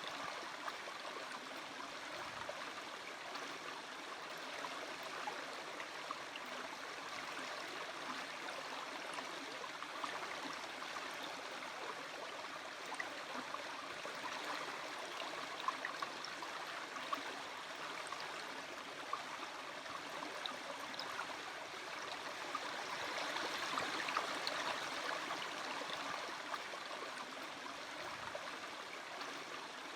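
Small stream running over rocks: a steady babble of water with many small splashes, swelling slightly a little past the middle.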